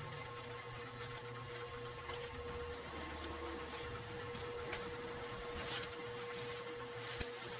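Plastic stretch wrap and bubble wrap rustling and crinkling as they are pulled and cut open with scissors, with a few sharp snips and crackles in the second half. A steady hum runs underneath.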